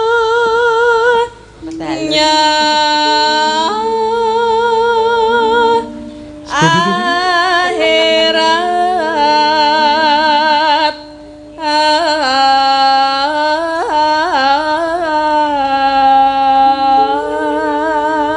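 A woman singing a slow Javanese sinden vocal line, holding long notes with heavy vibrato and sliding between them, in phrases broken by short breath pauses. Steady sustained instrumental notes accompany her.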